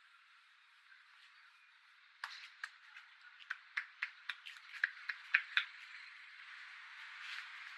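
Barber's hands striking during a head massage: a run of about a dozen sharp slaps, roughly three a second, beginning a couple of seconds in and mostly growing louder before stopping.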